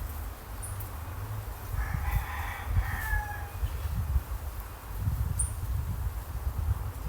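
A rooster crowing once, about two seconds in: a single call of a second and a half that drops in pitch at the end. A low rumble runs underneath.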